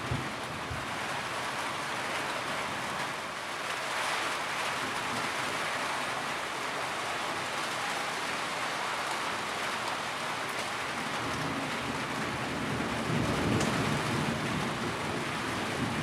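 Steady heavy rain hissing, with a low rumble of thunder swelling and fading from about two-thirds of the way through.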